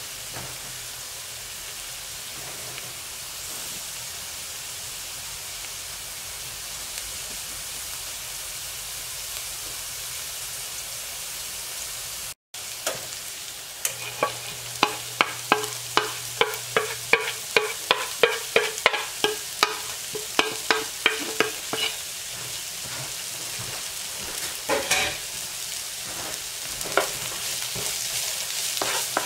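Sliced onion and garlic sizzling in oil in a nonstick frying pan. After a short break about halfway, a run of sharp taps, two to three a second for about eight seconds, comes as chopped ginger is knocked off a plate into the pan. The sizzling then carries on under a wooden spatula stirring.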